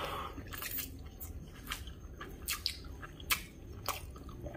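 Close-up eating sounds of instant noodles: wet chewing and slurping, with sharp, short wet clicks every second or so.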